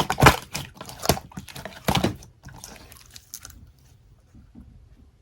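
Grape konjac jelly being chewed: a run of wet clicks and squishes that thins out and stops about three and a half seconds in.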